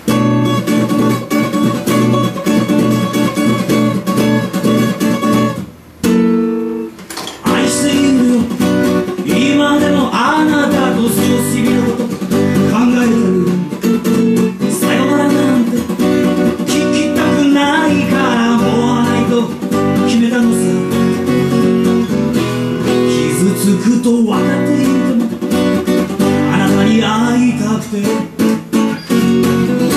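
Acoustic guitar strummed in chords for a short intro, breaking off briefly about six seconds in. A man then sings along to the strumming from about ten seconds in.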